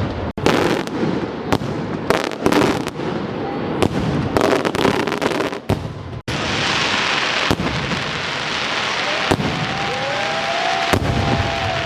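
Fireworks going off: a quick run of sharp bangs for about six seconds, then a dense, steady crackling hiss, with a few gliding whistle tones near the end.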